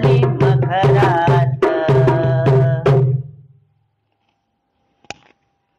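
Marathi devotional Devi song: a woman singing over tabla and drum, ending about three seconds in. A single sharp click follows in the silence near the end.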